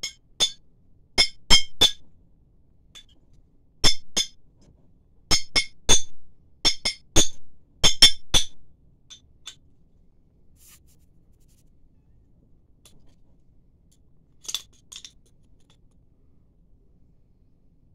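A knife striking a glass soda bottle at its metal cap, trying to knock the cap off, making sharp, ringing clinks. The clinks come in quick groups of two to four for the first eight seconds or so, then stop apart from a couple of faint taps later on.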